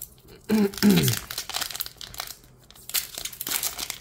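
A Pokémon booster pack's foil wrapper being torn open and crinkled by hand, a dense crackling rustle. There is a short voice sound about half a second in.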